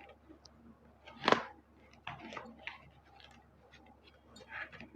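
Hands working at the tight plastic packaging of a paint brush set: scattered small clicks and crinkles, with one louder sharp crackle about a second in.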